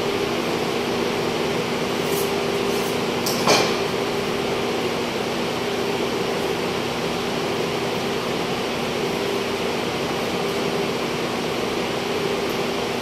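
Steady hum of a cold room's refrigeration evaporator fans, with a single sharp knock about three and a half seconds in.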